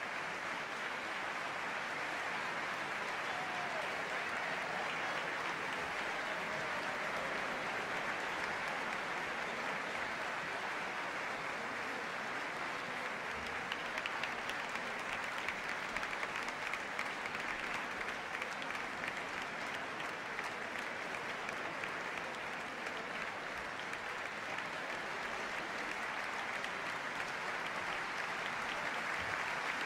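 A large concert-hall audience applauding: a dense, steady wash of clapping.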